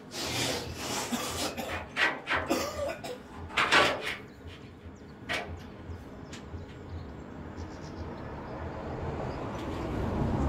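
MIG welder striking short tack welds on steel: a few crackling, spitting bursts in the first four seconds, then a quieter stretch with a low steady hum.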